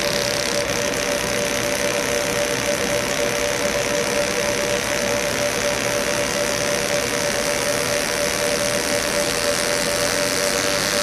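Fiber laser engraving machine running as it engraves a tumbler: a steady buzzing hum with a constant tone that does not change.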